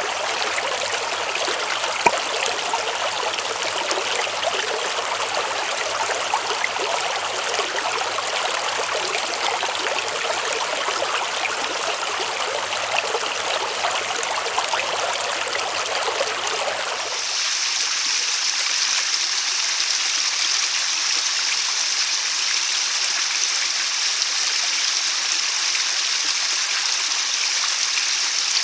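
A mountain headwater stream running over rocks, a steady rush of water, with a single click about two seconds in. About seventeen seconds in it switches to a different stretch of stream with a thinner, hissier sound.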